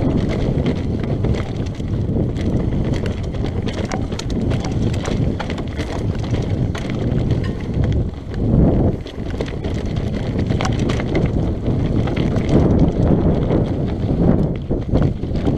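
Mountain bike rolling fast down a rocky singletrack: the tyres crunch and clatter over loose stones and the bike rattles with every bump, in a dense run of clicks and knocks. Wind rushes over the helmet- or chest-mounted action camera's microphone underneath.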